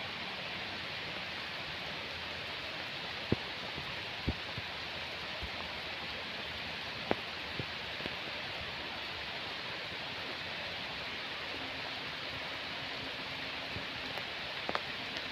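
Steady hiss of falling rain, with now and then the sharp tap of a single heavy drop hitting something close by, the loudest a little over 3 seconds and about 7 seconds in.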